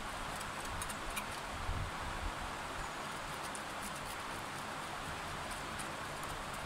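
Steady rush of a flowing river, with faint scratchy clicks of a knife scraping scales off a fish.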